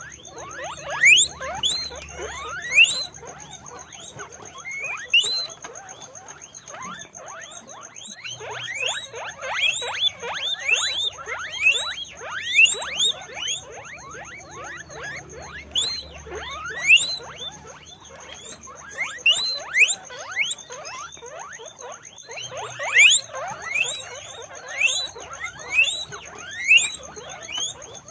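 Guinea pigs wheeking: many short, rising squeaks, often overlapping as several call at once, coming in clusters. A faint steady high whine runs underneath.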